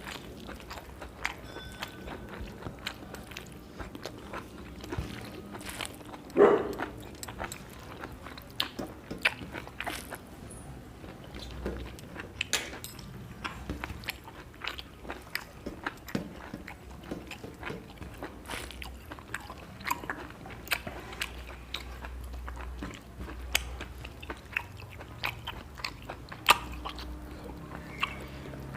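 Close-up eating sounds: chewing and mouth smacks as rice and spinach are eaten, with many short, irregular clicks.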